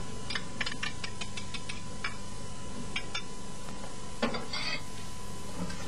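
A wire balloon whisk clicking lightly and irregularly against a metal saucepan as tomato paste is scraped off it into the sauce, followed by a brief louder scrape about four seconds in. Under it runs a steady hiss with a faint steady tone.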